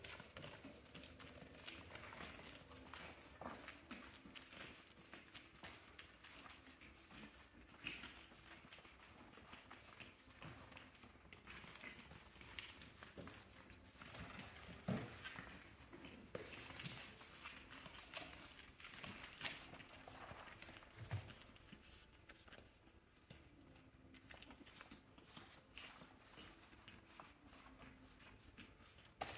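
Faint scuffling and light clicking of pug puppies' paws and claws on a quilted pad and floor as they play, with a few soft knocks.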